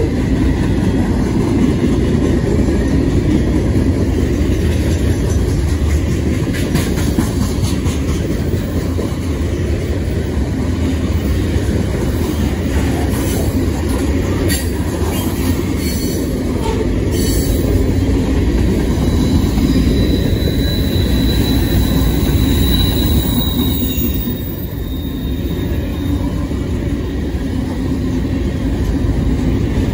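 CSX freight train's cars rolling past: a steady heavy rumble of steel wheels on rail, with scattered clicks in the first half and a thin high wheel squeal about twenty seconds in.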